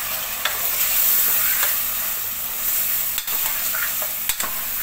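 Tomatoes, onions and dry spices sizzling in hot oil in a stainless steel pressure cooker, a steady frying hiss with a few sharp clicks.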